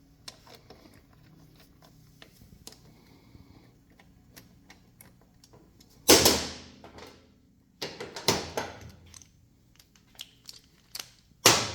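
Hand tools and metal parts being handled: light clicks and ticks, then a few sharp metallic clanks with a short ringing tail, one about halfway through, a cluster soon after and another near the end, as fork pinch bolts are run in by hand and tools are picked up.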